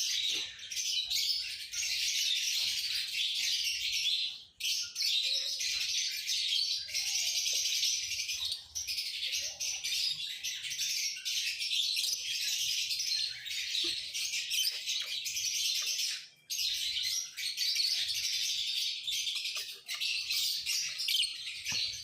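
A flock of lovebirds chirping continuously in a dense, high-pitched chatter, with two brief breaks.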